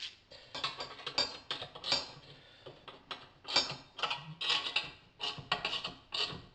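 Socket ratchet clicking in short uneven runs as a clamp bolt is snugged up lightly, not fully tightened.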